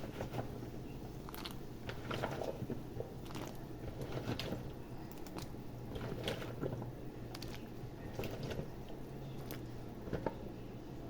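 Chopped vegetables being added to a pot of soup: irregular soft plops, squishes and light knocks about once a second, over a steady low hum.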